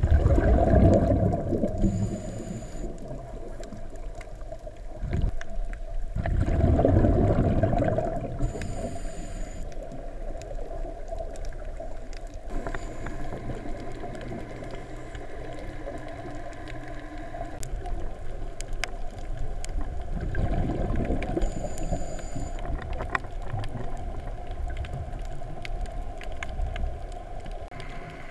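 Underwater sound picked up by a camera in its housing: a scuba diver's exhaled bubbles rushing in loud surges, near the start, around seven seconds in and again around twenty seconds, over a steady low underwater rumble.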